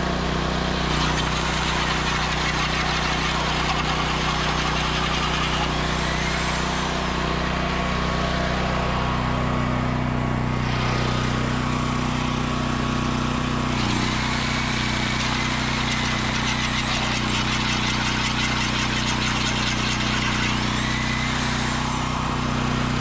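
Drill turning a Lumberjack Tools tenon cutter on the end of a debarked log, cutting a round tenon. The motor runs steadily under load, and its tone shifts about nine seconds in.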